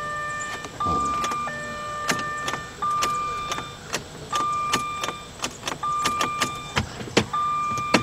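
Electronic warning chime in the 2003 Jaguar S-Type beeping over and over, short tones about every second and a half, with sharp clicks between them.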